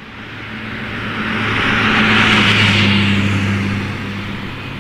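An old Jaguar car driving past: its sound builds to a peak about two and a half seconds in, then fades, over a steady low hum.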